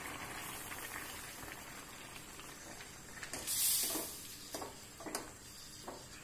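A steel pan of coconut-milk curry bubbling on the stove as thick first-press coconut milk is poured in from a glass bowl, with a brief hiss about three and a half seconds in. A few light clinks follow as a spoon scrapes the last of the milk from the bowl over the pan.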